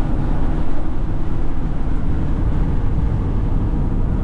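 Peterbilt 389 semi truck driving, its diesel engine and road noise heard as a steady low drone inside the cab.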